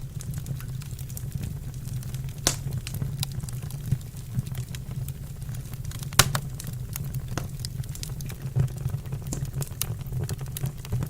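Wood fire burning in a fireplace, with irregular sharp crackles and pops over a low steady rumble; one louder pop a little over six seconds in.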